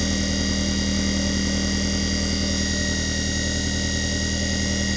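Desktop leather edge burnishing machine's electric motor running steadily, a constant hum with a high whine over it.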